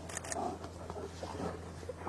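Bears fighting: irregular rough growls and huffs, over a steady low hum.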